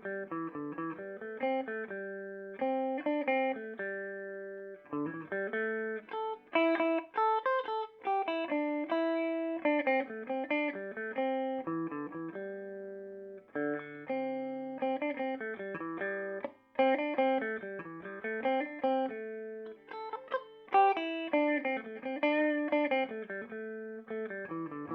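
Electric guitar played through a Peavey Bandit 112 combo amp on its clean channel in modern voicing, high-gain input: clean, undistorted picked chords and single-note lines, the notes ringing into one another, with a few short breaks between phrases.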